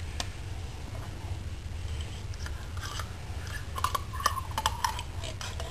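Condensed tomato soup being emptied from its can into the casserole: faint scattered clicks and scrapes of can and utensil, over a steady low hum.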